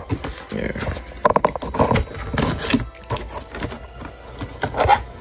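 A plastic water bottle handled close to the microphone: a run of irregular crinkles, clicks and knocks.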